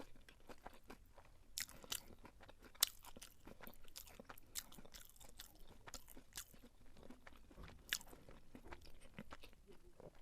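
Close-miked chewing of beef pilau: irregular soft crunches, wet mouth clicks and smacks as a mouthful of rice and beef is eaten.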